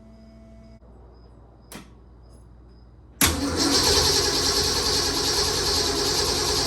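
A single click about two seconds in, then about three seconds in a starter motor begins cranking the Ford 331 stroker V8 steadily without it firing, turning it over to pull fuel into the filter before a choked start.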